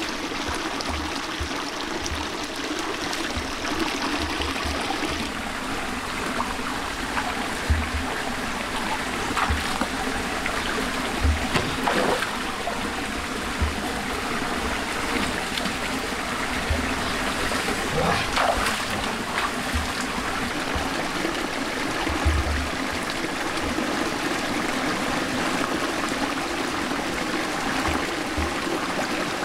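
Shallow stream running over rocks with a steady trickling and rushing, broken by a few short splashes and knocks as someone wades and gropes in the water.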